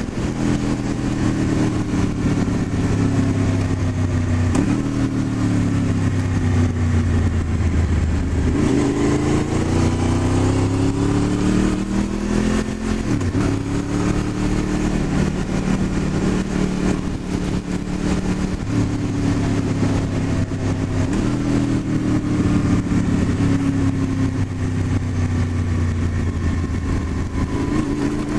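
Honda VFR800's V4 engine under way on the move. Its note rises and falls repeatedly as the throttle opens and closes, with several sudden steps in pitch at gear changes.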